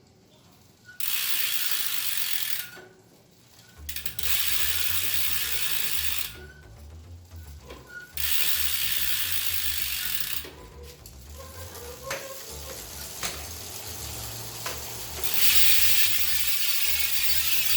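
Maxzone Stroke freehub buzzing as the rear wheel freewheels: the pawls click so fast they merge into a loud ratchet buzz, in spells of about two seconds, with slower separate clicks in between.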